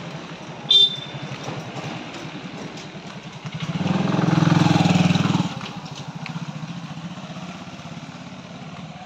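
Small motorcycle engine running steadily at low speed, swelling louder for about two seconds near the middle. A brief, sharp high-pitched chirp sounds about a second in.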